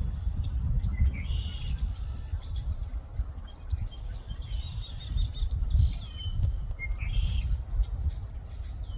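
Several short bird calls a few seconds apart, including a quick series of notes in the middle, over a steady low rumble.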